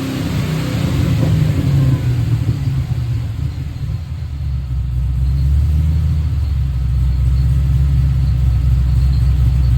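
Chevrolet Chevelle's engine running steadily with a low exhaust note, growing a little louder about halfway through.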